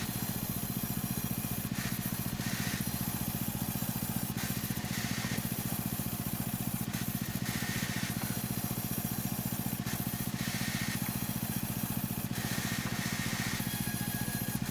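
A machine engine running steadily with a fast, even pulse, with a higher hiss rising and falling every second or two over it.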